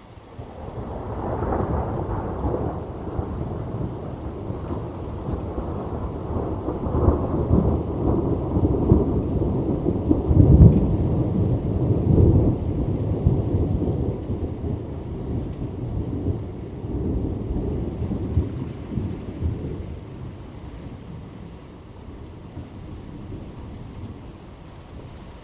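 A long peal of thunder over steady rain. The rumble builds about a second in, peaks with a couple of sharper cracks about halfway through, then rolls away and leaves only the rain near the end.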